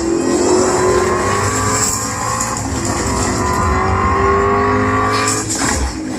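Car engines revving hard and accelerating in a movie's sound effects, their pitch climbing in long rising sweeps over a heavy low rumble, with a short drop in level just before the end.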